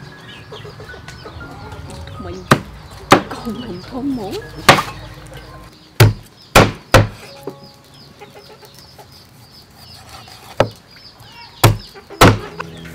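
A heavy kitchen knife chopping a whole fish crosswise into steaks on a thick wooden chopping board: about nine sharp chops at an uneven pace, the blade going through the backbone onto the wood.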